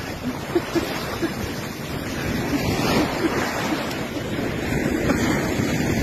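Sea waves breaking and surf washing up a beach, with wind rumbling on the microphone.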